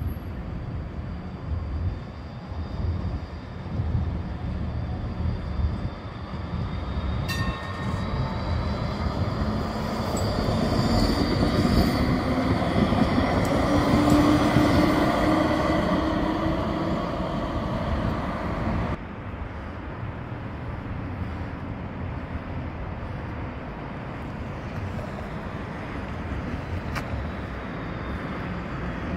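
Alstom NGT DX DD low-floor tram drawing near and passing close by, its electric drive whining and rising in pitch over the rumble of its wheels on the rails, loudest about halfway through. About two-thirds of the way in the sound cuts off abruptly, leaving quieter street traffic noise.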